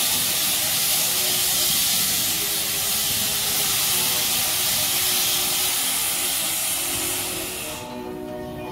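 Narrow-gauge steam locomotive blowing steam from its open cylinder drain cocks as it moves slowly: a loud, steady hiss that cuts off suddenly about a second before the end as the cocks are closed.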